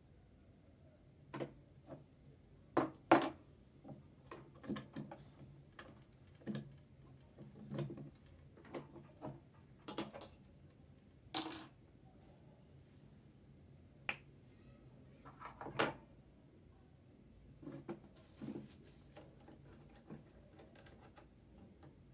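Irregular light clicks and knocks of small metal sewing-machine parts and tools being handled, a dozen or so scattered strikes with short pauses between them.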